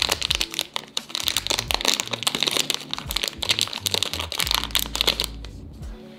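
Shiny plastic electronics wrapping being pulled open and crumpled by hand, a dense rapid crinkling that stops about five seconds in.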